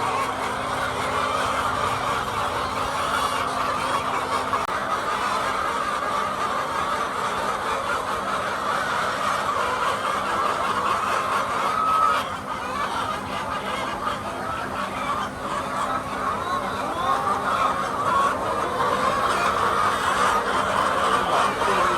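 A large flock of hens clucking and chattering all at once, a dense continuous din of overlapping calls. A steady low hum runs under it for the first half and then fades.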